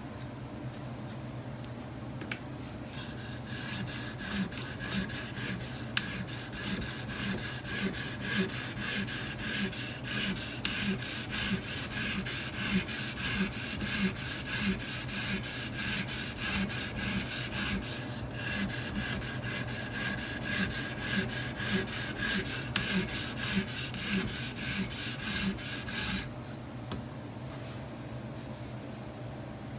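A 220-grit Edge Pro sharpening stone rasping in rapid, even back-and-forth strokes along a knife blade's edge, with a brief pause in the middle. This is coarse reprofiling to set the bevel and raise a consistent burr.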